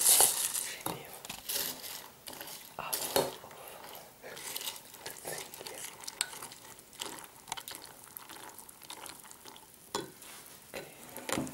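A spoon stirring cereal in a ceramic bowl, with irregular scrapes and clicks of the spoon against the bowl, loudest right at the start.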